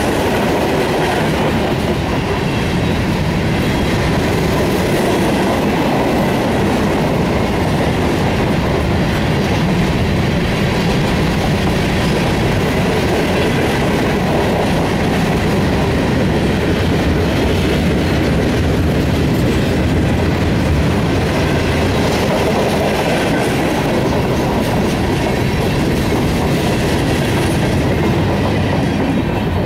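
Freight train's covered hopper cars rolling past at close range, a loud, steady rumble of steel wheels on the rails. It eases off at the very end as the last car goes by.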